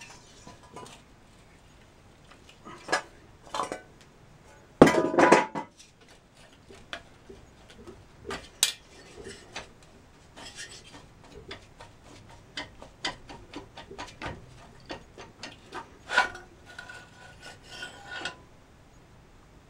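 Cylinder head of an air-cooled VW Beetle flat-four engine being worked by hand off its studs during a teardown: scattered metallic clinks, knocks and scrapes, with a louder clunk and short rattle about five seconds in.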